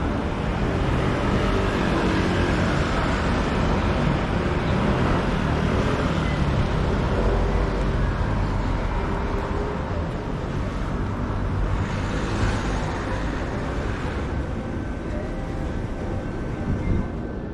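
Busy city street ambience: steady traffic noise from passing cars, with a brief swell of noise about twelve seconds in.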